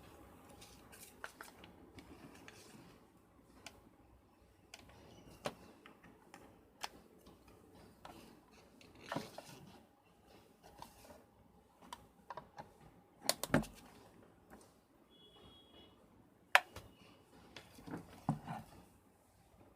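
Faint, scattered clicks and light knocks of small objects being handled and set down on a work surface, with sharper knocks about 13 seconds in and about 16 and a half seconds in.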